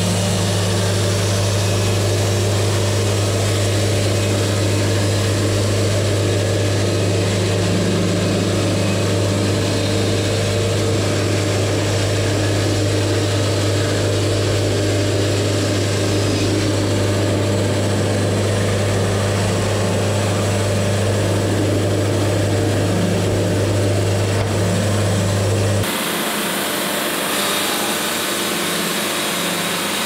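Wood-Mizer LT70 Wide bandsaw mill running with its band blade sawing through a log: a loud, steady low hum under a constant hiss. Near the end the low hum drops out and a brighter hiss takes over.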